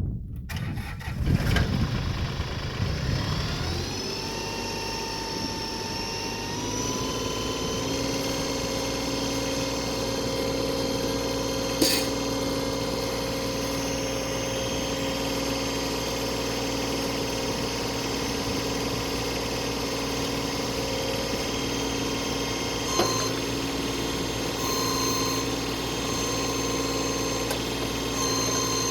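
Tractor engine started, its speed rising over the first several seconds and then settling into a steady run, with a couple of sharp knocks along the way. It is being run to pressurise a newly replaced backhoe hydraulic line and check it for leaks.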